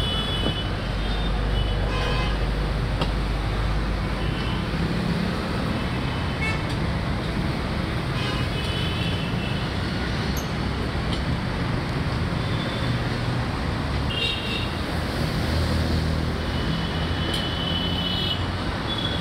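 Steady city street traffic with engines running past, and vehicle horns honking many times in short toots.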